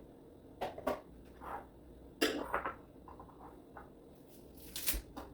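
A few scattered light knocks and clatters of kitchen items being handled, likely vegetables going into a blender jar. The loudest knock comes about two seconds in, with a small cluster near the end.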